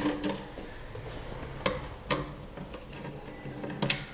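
Screwdriver undoing screws on a copier developer unit's plastic cover: faint scattered clicks and ticks of metal on screw and plastic, with a sharper click near the end.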